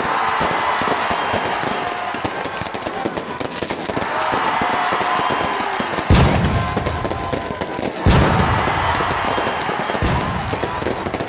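Fireworks going off overhead: a continuous dense crackling and popping of many bursts, with two loud booms about six and eight seconds in and a weaker one near the end.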